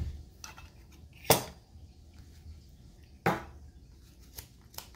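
Metal parts of a mini jet engine kit, the stainless flame tubes and machined turbine pieces, clinking and knocking as they are handled and set down on the table. There are two sharp clinks, about a second in and past the middle, and a couple of lighter ticks near the end.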